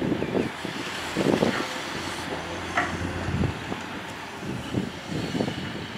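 Komatsu PC210 hydraulic excavator's diesel engine running under working load as it digs and lifts its bucket, with irregular knocks and clanks.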